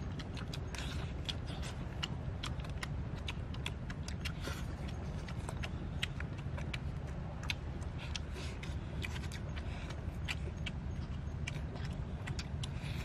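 Close-up eating sounds: irregular small clicks and smacks of chewing and of cooked cowfish being picked apart by hand, with a few soft rustles, over a steady low rumble.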